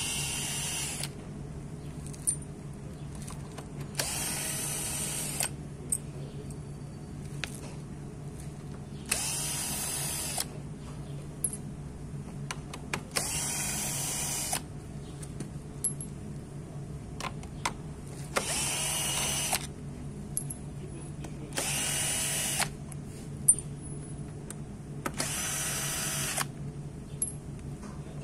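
Cordless drill-driver undoing the bolts of a Piaggio Vespa S50's transmission cover. It runs in short whirring bursts of about a second each, roughly every three to four seconds, about seven times, each rising briefly in pitch as the motor spins up. Small clicks and knocks come between the bursts as each bolt comes out and is handled.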